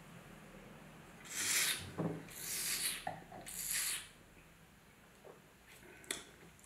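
A wine taster drawing air through a mouthful of wine to aerate it: three hissing slurps of about half a second each, with a light knock between the first two.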